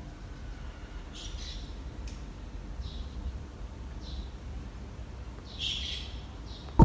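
Birds chirping four times, the last call near the end the loudest, over a steady low background rumble.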